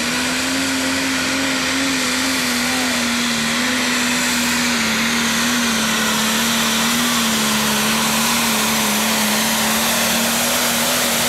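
Single-turbo diesel engine of a John Deere 4430 Pro Stock pulling tractor held at high revs under full load as it pulls the sled, a loud steady pitch that wavers only slightly.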